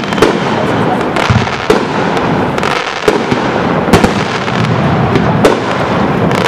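Aerial fireworks going off in a dense barrage: continuous crackling and booming, with sharp bangs about once a second.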